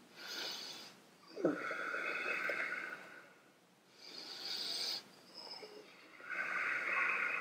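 A man breathing deeply and audibly while holding a backbend: about four slow breaths in and out, each lasting a second or more, with short pauses between them.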